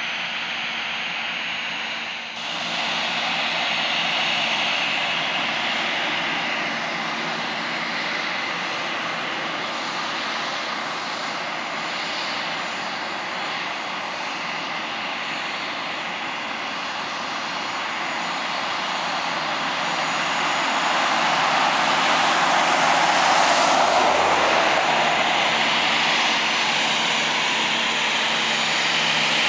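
Airbus A319's twin CFM56 turbofans running near idle as the airliner taxis, a steady jet whine and hiss. The sound swells louder around twenty-odd seconds in as the aircraft turns nose-on toward the listener.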